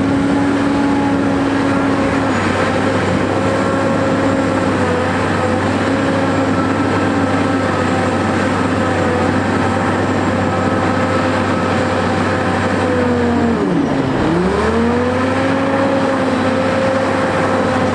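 Caterpillar 988A wheel loader's diesel engine running steadily at high revs. About three-quarters of the way through, its speed drops sharply and then climbs back up.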